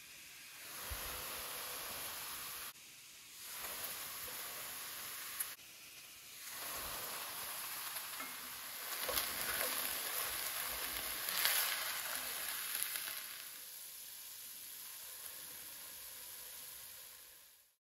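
Ground chicken sizzling in a hot stainless steel skillet as it is stirred, with a few sharp scrapes and clicks. The sizzle drops away briefly twice near the start and is loudest past the middle, after fish sauce and chili paste have gone into the pan.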